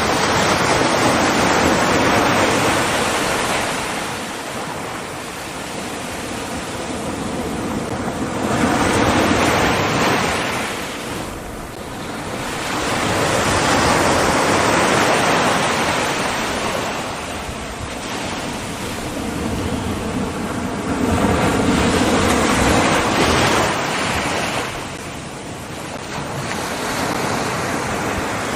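Ocean surf: a broad rushing noise that swells and fades every several seconds as waves break and wash in, with wind on the microphone.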